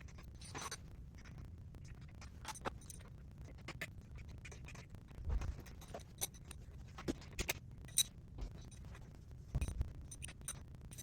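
Irregular metal clicks, clinks and light scrapes of hand tools working on a unicycle's bearing clamp, with a couple of soft knocks: the bearing tension being set on the second side of the hub.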